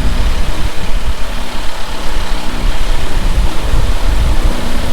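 Strong wind buffeting the microphone, a loud, uneven low rumble, with a vehicle engine idling steadily underneath.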